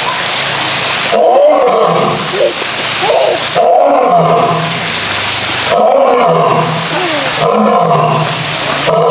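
Male lion roaring: a series of loud roars, about one every two seconds.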